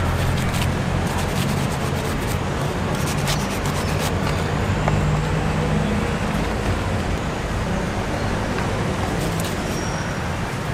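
Steady low engine hum of nearby traffic under a constant background noise, with a scatter of faint clicks in the first few seconds.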